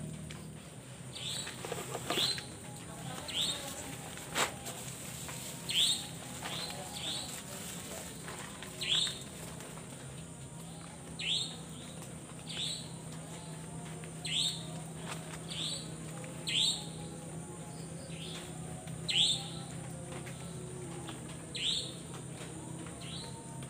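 Short chirping calls, each falling quickly in pitch, repeated every second or two, over a steady high-pitched whine.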